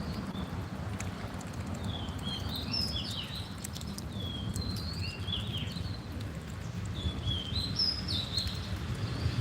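Wind on the microphone as a steady low rumble, with small birds chirping in short high twittering phrases, in clusters about two, five and eight seconds in.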